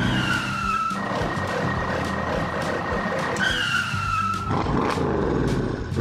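Car sound effect: tyres screech twice, each a falling squeal about a second long, the second about three and a half seconds after the first, over the noise of a running car.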